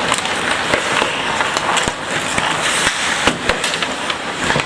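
Ice hockey play: skates scraping the ice, with scattered sharp knocks of sticks and puck.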